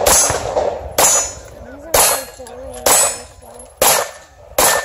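.45 pistol fired six times at a steady pace of about one shot a second. Each shot is followed by a short metallic ring from the steel targets being hit.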